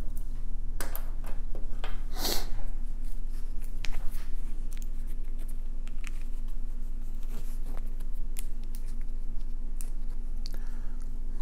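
Scattered light clicks and clinks of a Seiko SARB035's stainless steel link bracelet being handled, the strongest about two seconds in, over a steady low hum.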